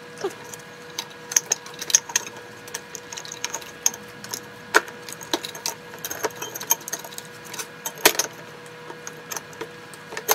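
Irregular metallic clicks, knocks and clatter from a steel battery hold-down bracket being fitted and the batteries shifted inside a sheet-metal UPS case. A faint steady whine runs underneath.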